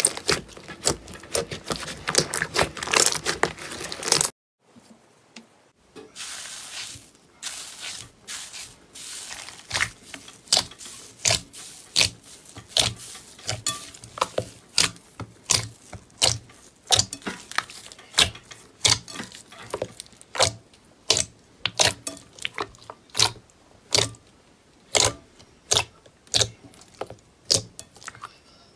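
Slime being kneaded and squeezed by hand: dense wet crackling and sharp clicks from trapped air popping. After a brief silence about four seconds in, a second slime is pressed and poked, giving spaced sharp pops, about one or two a second, with soft squelching between.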